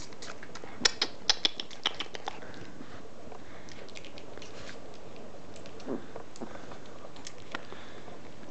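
Small puppies playing and mouthing on a bed: a quick run of sharp little clicks and ticks about a second in, a brief low squeak near six seconds, and a few scattered ticks over a steady hiss.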